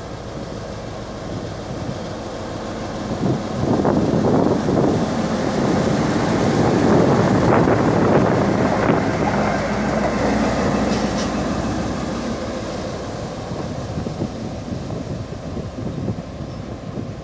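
GM G-22 diesel locomotive running light, with no cars: its EMD 12-645E engine and its wheels on the rails get louder as it approaches, are loudest as it passes close by about halfway through, then fade as it moves away.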